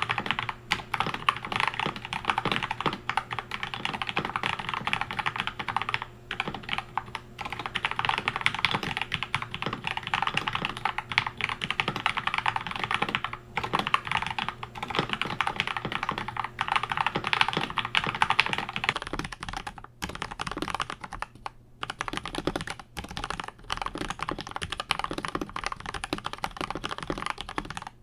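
Continuous fast typing on an Akko 5075S mechanical keyboard with Gateron Milky Yellow linear switches, lubed with Krytox 205g0, on a polycarbonate plate: a dense run of keystrokes broken by a few short pauses, more of them in the later part.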